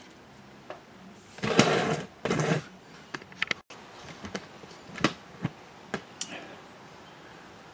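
Metal clicking and tapping of hand tools against a drum brake's shoes and springs as a brake shoe spring is worked into place, with two short louder bursts of noise about one and a half to two and a half seconds in and scattered sharp clicks after.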